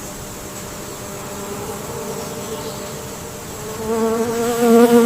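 A flying insect buzzing, a wavering hum that grows much louder about four seconds in, as if passing close by.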